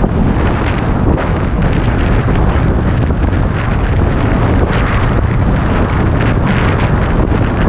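Steady wind rushing over the microphone of a camera on a 2017 Harley-Davidson Street Glide Special at highway cruising speed, with the low drone of the bike's engine underneath.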